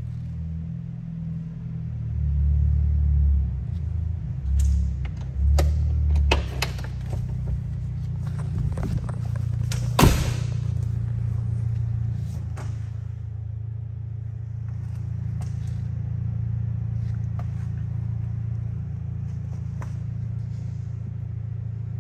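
A steady low rumble with a run of sharp clicks and knocks over it, the loudest about ten seconds in.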